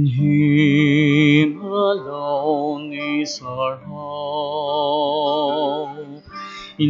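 A voice singing a communion hymn in long held notes, each wavering with vibrato.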